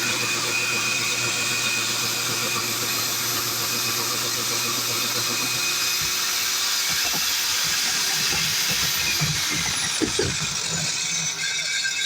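Electric core drill running as it bores through a concrete roof slab, giving a steady grinding hiss with a high motor whine. A low hum cuts out about halfway through, and near the end the high whine falls steadily in pitch as the motor runs down.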